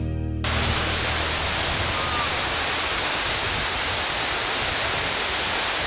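Waterfall pouring down a rock face: a steady, dense rush of falling water that sets in as background music cuts off about half a second in.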